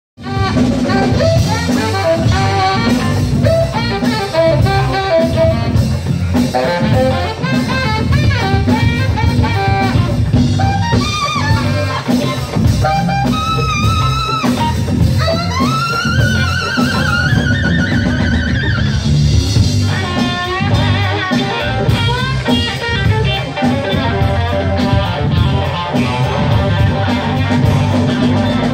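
A live band playing: a saxophone leads over electric guitar, electric bass and drum kit, with a steady beat. About halfway through, the saxophone bends up into a long held high note.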